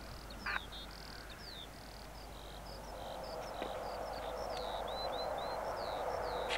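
A bird singing rapid, high chirping and gliding phrases throughout. About halfway in, the rushing noise of a jet aircraft taking off comes in and grows steadily louder.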